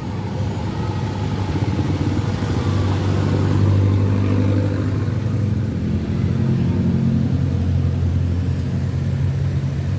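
A large tour bus engine running as the bus passes close by. It is loudest about four seconds in, and the engine note shifts about six seconds in.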